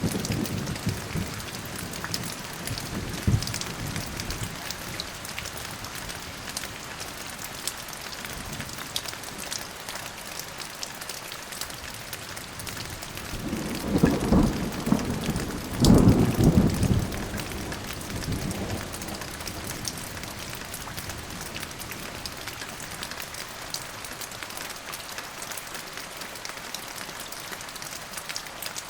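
Steady rain falling with a patter of drops, and a rolling thunderclap about halfway through that peaks twice before dying away. A fainter rumble of thunder fades out near the start.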